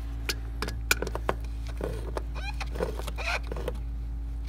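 Wrench on a Duramax fuel filter as it is snugged up: a few irregular sharp clicks and knocks of metal, most of them in the first couple of seconds, over a steady low hum.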